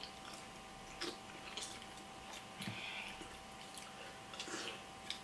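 Quiet eating sounds of a crab-leg feast: chewing, with scattered small clicks and crackles of crab shell being pulled apart and a short soft slurp about three seconds in. A faint steady hum sits under it.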